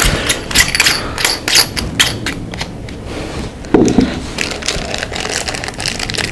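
Handling noise from unboxing a rifle scope and its parts: a run of clicks, taps and rustling, with a dull thud about four seconds in.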